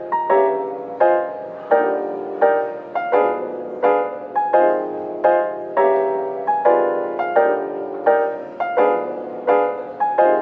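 Background piano music: single notes struck at an even pace, about three every two seconds, each ringing and fading.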